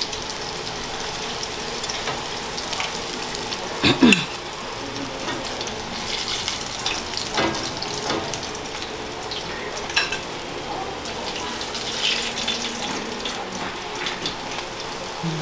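Chicken pieces frying in hot oil in a cast-aluminium Dutch pot, a steady sizzle. A few sharp metal clacks of the fork and spatula against the pot cut through it, loudest about four seconds in, with smaller ones later.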